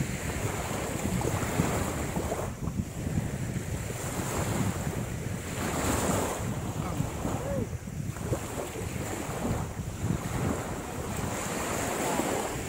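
Wind rumbling on the microphone over the wash of small waves on the shore, swelling and easing every couple of seconds.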